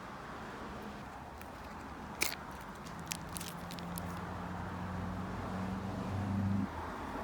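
A few sharp clicks and light handling noise from small plastic packaging being opened, the loudest click about two seconds in, over a low steady hum that grows a little louder and stops suddenly near the end.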